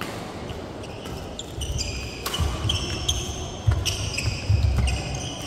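Badminton doubles rally on a wooden sports-hall floor: court shoes squeaking in short chirps, several sharp racket strikes on the shuttlecock, and heavy footfalls thudding in the second half, which are the loudest sounds.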